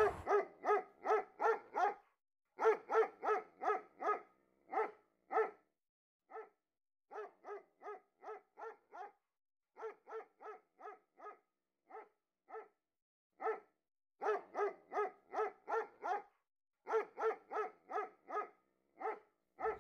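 A dog barking over and over in quick runs of four to seven barks, about three a second, with short pauses between the runs and dead silence between the barks.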